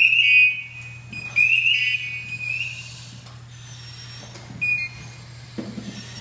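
A firefighter's PASS (personal alert safety system) alarm sounding in shrill high-pitched bursts of rising chirps: one at the start, a longer run about a second in, and a brief chirp near the end. It is the alarm that goes off when a downed firefighter lies motionless.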